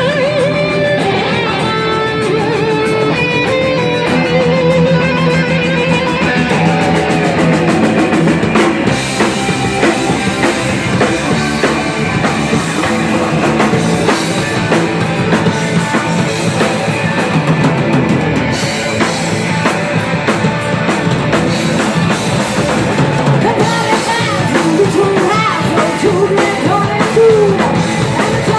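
A live heavy-metal band plays steadily and loudly: distorted electric guitars, bass and a full drum kit. Sung vocals come in near the end.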